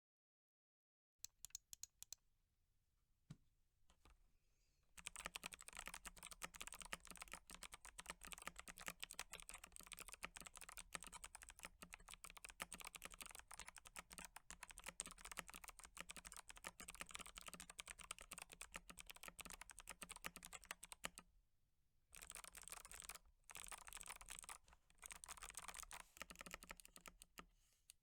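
Yuzii KC84 mechanical keyboard with lubed Kailh Box White clicky switches being typed on, each keystroke a sharp click. A few separate keystrokes come first, then fast continuous typing from about five seconds in, a short pause about three quarters of the way through, and a few more bursts of typing.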